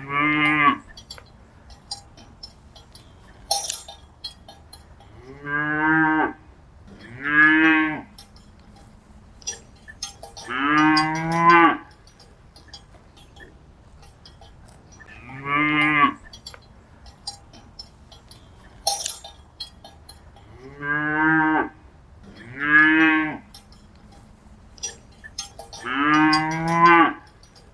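Cattle mooing: about eight calls, each around a second long, some in close pairs and others spaced several seconds apart, with faint light clinks and ticks in between.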